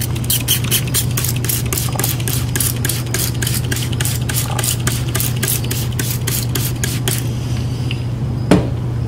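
Trigger spray bottle misting alcohol over freshly poured raw cold-process soap: about four quick squirts a second for some seven seconds, over a steady low hum. A single knock sounds near the end.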